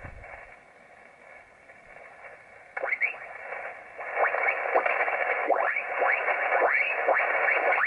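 Yaesu FT-817 shortwave receiver on 80 m single sideband: faint band hiss, then about three seconds in a mistuned voice station comes up out of the noise, its pitch sliding as the dial is turned. It gets louder about a second later as the receiver is tuned back toward the preselector's passband.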